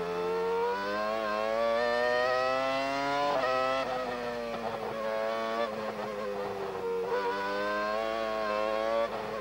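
Formula One McLaren's Mercedes V10 engine at full song, heard from on board. It revs up under acceleration, with a sharp upshift about three seconds in. The pitch then eases down through the middle and climbs again, with another shift near the end.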